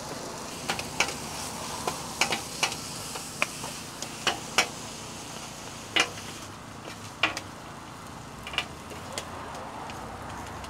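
Food sizzling on a flat-top griddle with a steady hiss, broken by irregular sharp clicks and knocks of metal cooking utensils.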